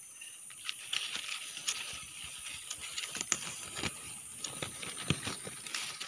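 Leaves and twigs of a shrub rustling and crackling as branches are pushed aside by hand, with irregular sharp clicks of snapping or brushing stems.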